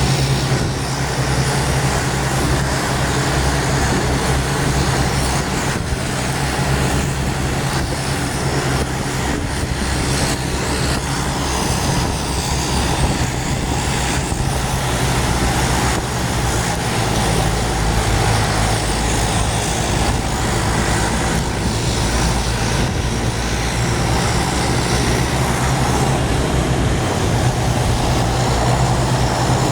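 Tour bus diesel engine running with a steady low hum, over road traffic noise; no horn is sounded.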